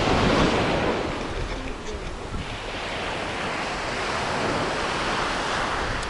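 Small waves washing up onto a sandy beach, the surf swelling and easing, loudest in the first second, with wind buffeting the microphone.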